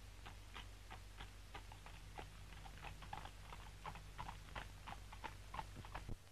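Irregular small clicks and taps, a few a second, from hands working over a newspaper on a wooden counter, over the low steady hum of an old film soundtrack. The clicks stop suddenly near the end.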